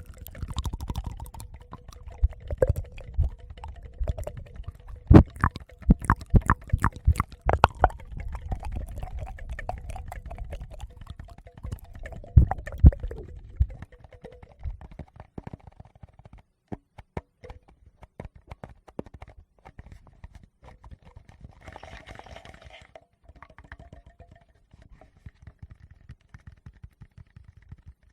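Close-miked ASMR handling sounds of fingers tapping and rubbing on a Tascam recorder's microphones: many sharp clicks and taps over a low rumble. They are busiest in the first half and sparser later, with a short breathy rush about 22 seconds in.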